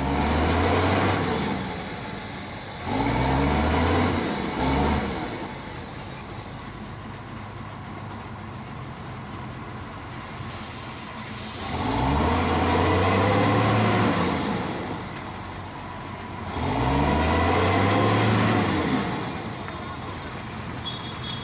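Tata truck's diesel engine revving up hard four times, each surge held a second or two before falling back to a lower run, as the stuck truck tries to pull out of the mud.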